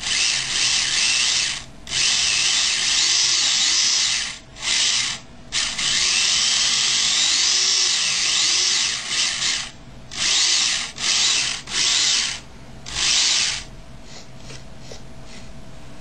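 Small electric motor and gears of a homemade 1/25 scale RC car, an iWaver motor, whining in bursts as the throttle is applied and released. The pitch rises and falls, with short gaps between bursts. From about two seconds before the end it drops to a fainter steady hiss.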